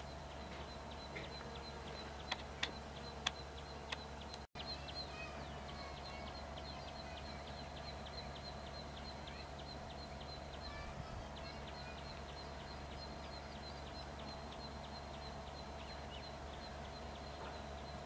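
Garden ambience: a bird chirping rapidly, about four high chirps a second, with other bird notes and a steady insect hum underneath. A few sharp clicks come in the first four seconds, and the sound cuts out for an instant about four and a half seconds in.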